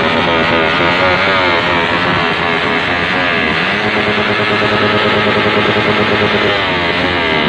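Suzuki Raider 150 Fi's single-cylinder engine revving through an AUN full titanium exhaust, its pitch rising and falling in repeated blips. It settles to a steady hold in the middle, then dips and rises again near the end.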